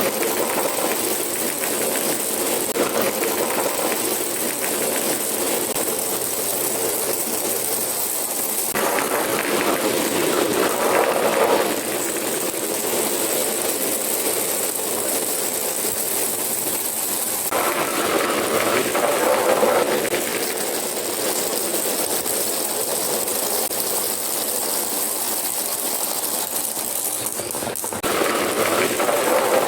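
Marbles rolling and clattering down a marble run track as a continuous, busy rattle. The texture changes abruptly a few times.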